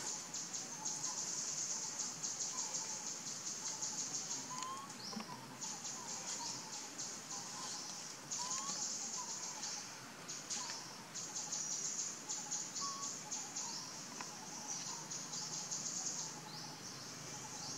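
Outdoor natural ambience: a high, fast-pulsing buzz that comes and goes in phrases of a few seconds, with faint short chirps beneath it.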